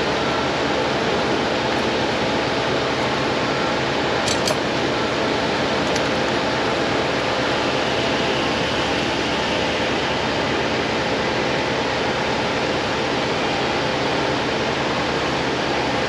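Steady fan-like rushing noise of workshop air, with a few light tool clicks about four and six seconds in as pliers and hands work the alternator loose on the diesel engine.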